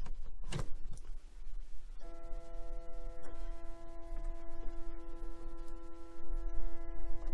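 A power plug clicking and knocking as it is pushed into a wall outlet. About two seconds in, a steady humming tone with several overtones starts and holds unchanged.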